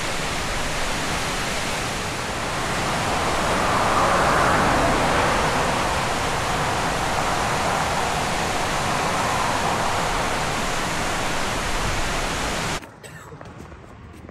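Steady rush of falling water, a waterfall or fast mountain stream, with no pauses; it swells a little about four seconds in and cuts off suddenly near the end.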